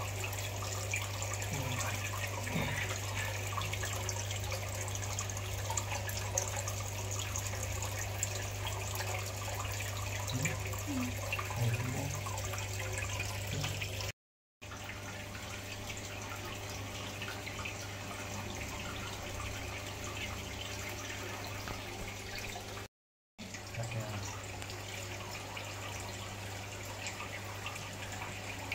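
Steady running, trickling water with a low, constant hum underneath. It cuts out briefly twice, at edits.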